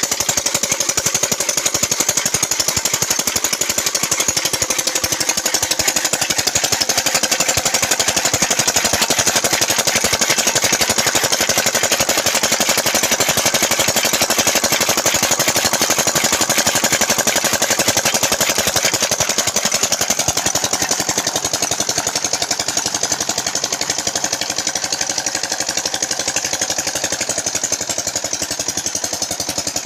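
Single-cylinder Peter diesel engine running steadily under load while driving a chaff cutter, with a fast, even knocking beat. It eases off slightly about two-thirds of the way through.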